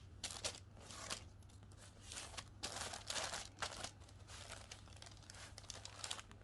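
Wrapping on hotel amenities crinkling and rustling faintly in irregular bursts as the packaged items are handled and unwrapped.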